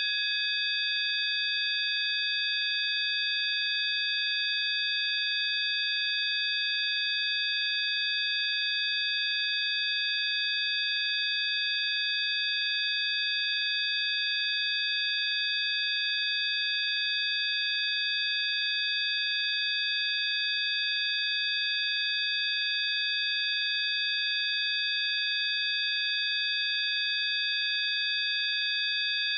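Steady synthesized sine tones: several high pitches layered and held without change, over a faint hiss in the same range. This is a frequency-healing tone track.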